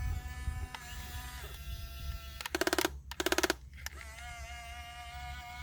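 Electric motors of a radio-controlled toy excavator giving a steady whine that shifts in pitch as the controls change. Two short bursts of rapid buzzing rattle come about halfway through.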